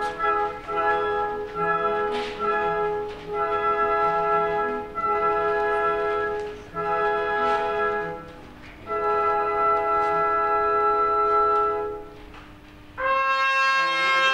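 Opera orchestra playing a brass-led passage: held chords in phrases of one to two seconds with short breaks, then a louder, higher entry near the end.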